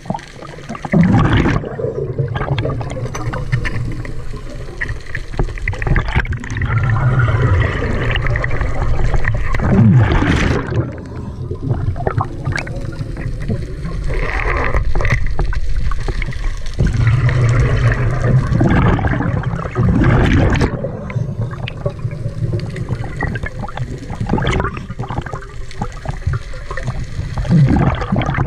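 Scuba diver breathing underwater through a regulator: slow repeated cycles of inhaled hiss and gurgling bursts of exhaust bubbles.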